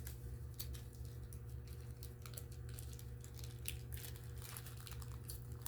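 Faint crinkling and scattered small ticks of packaging being handled, over a steady low hum.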